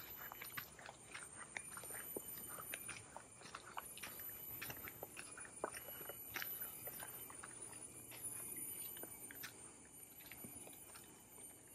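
Footsteps on a dirt trail with dry leaves underfoot: an irregular run of soft crunches and clicks that thins out near the end. A steady, high insect drone runs underneath.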